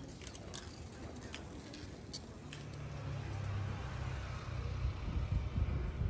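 Town-centre street ambience with faint voices and a few light clicks, then a low engine rumble of a vehicle, starting about halfway and growing louder toward the end.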